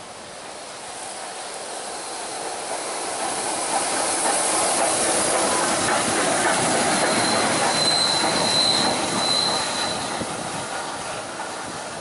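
Steam locomotive 34046 Braunton, a rebuilt Bulleid West Country class 4-6-2, running light engine past. The rumble and hiss of the engine and its wheels build as it approaches, are loudest as it goes by, then fade away. A thin, high squeal comes in about eight seconds in and lasts about two seconds.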